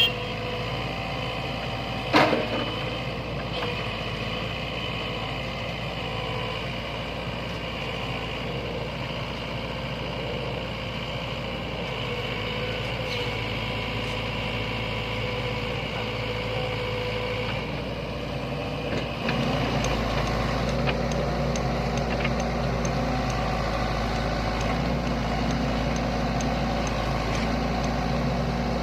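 Sany hydraulic excavator's diesel engine running steadily, with one sharp metallic clank about two seconds in. About two-thirds of the way through, the engine note gets louder and heavier as the machine works harder.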